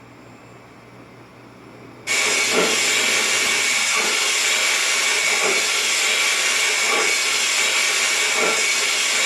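KATO 22-101 sound box playing a recorded steam locomotive's steam hiss through its speaker. The hiss starts suddenly about two seconds in and holds steady, with soft thuds about every second and a half underneath.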